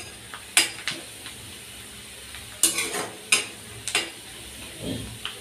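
Sliced onions sizzling in hot oil in a kadhai as they fry toward golden. A metal spatula scrapes and clicks against the pan several times as they are stirred.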